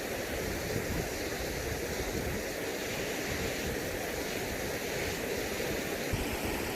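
Steady rush of flowing river water, with some wind buffeting the microphone.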